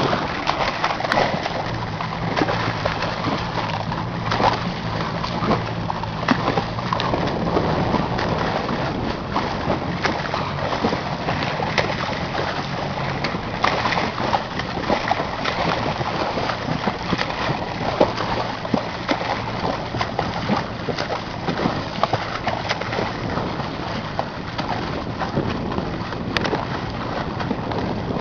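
Sea water splashing and sloshing, with many small splashes, over a low steady hum that fades out about halfway through.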